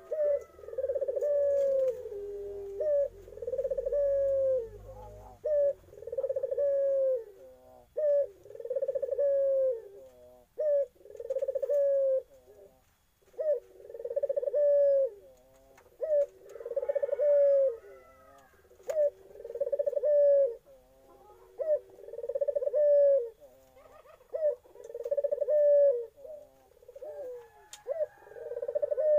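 Young puter Irak, a domestic barbary dove, cooing over and over: low drawn-out coos, each about a second long, one every second or two.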